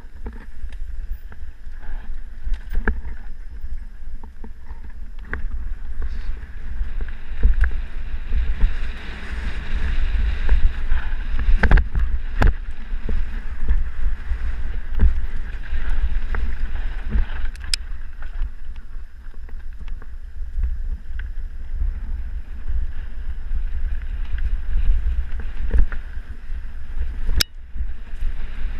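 Wind rumbling on the camera microphone of a mountain bike descending a dirt singletrack, with the bike rattling and knocking over bumps in the trail; a few sharp knocks stand out, the loudest near the end.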